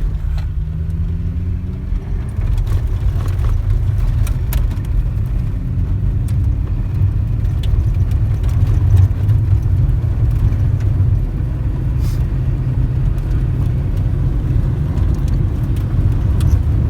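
Car engine and road rumble heard from inside the cabin while driving, the engine note rising twice as the car accelerates.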